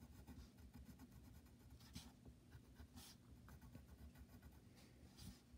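Faint scratching of a graphite pencil on paper as it draws short, irregular strokes, a few of them louder, over a low steady hum.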